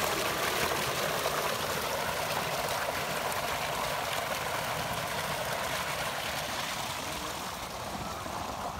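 Tubewell water gushing from a pipe outlet into a concrete tank: a steady rushing splash that eases a little toward the end.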